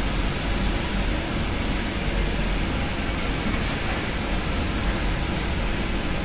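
Samosas deep-frying in a large aluminium wok of oil over a gas burner: a steady noisy roar with a low rumble and a sizzle.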